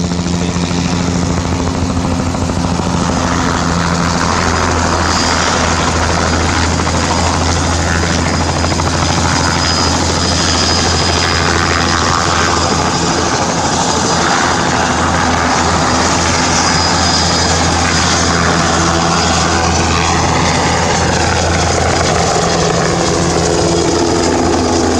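Bell 206 JetRanger helicopter in low flight: the deep beat of its two-bladed main rotor under the steady high whine of its turbine engine. The pitch glides near the end as it passes close overhead.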